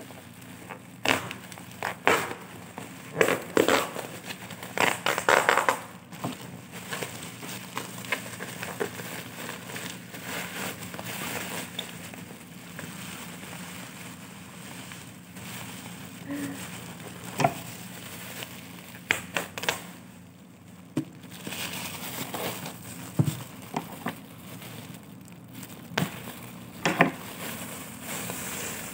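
Black plastic mailer bag crinkling and crackling as hands pull and work it open. Sharp crackles come thick and fast in the first few seconds, then more scattered handling with a few louder snaps later on.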